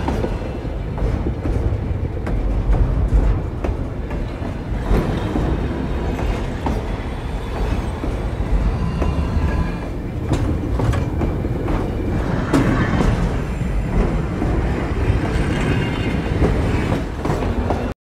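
Looped Death Star cargo crane sound effect: a continuous heavy mechanical rumble with scattered metallic clanks and rattles.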